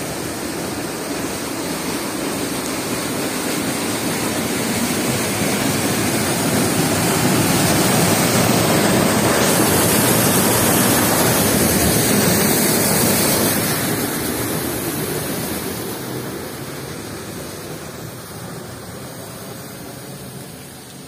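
Rainwater runoff gushing under strong pressure from a drain pipe into a concrete channel and churning there, a steady rushing of water. It grows to its loudest about halfway through, then fades over the last several seconds.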